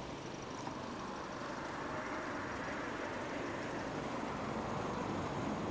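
Steady hum of motor traffic, growing slightly louder near the end.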